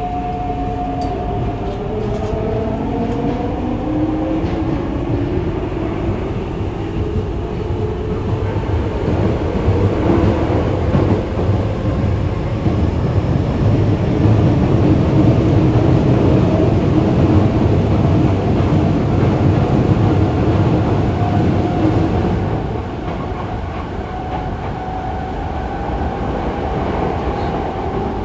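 Yokohama Blue Line 3000A subway car's Mitsubishi GTO-VVVF inverter motors whining under a heavy rumble of the wheels on the rails, heard from inside the car. The whine's pitch shifts during the first several seconds, with the upper tones rising, and the running rumble grows louder through the middle before dropping suddenly about 22 seconds in.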